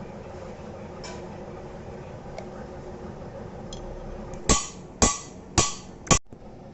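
Four hammer blows on a metal gearbox part, evenly spaced about half a second apart, each ringing briefly.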